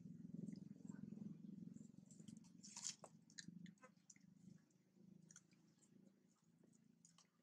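Faint chewing from a long-tailed macaque eating by hand, loudest in the first two seconds, with scattered small clicks, the sharpest about three seconds in.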